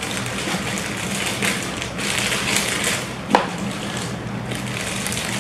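Plastic packaging crinkling and rustling as hands unwrap a small item from its bag, with one sharp click a little over three seconds in.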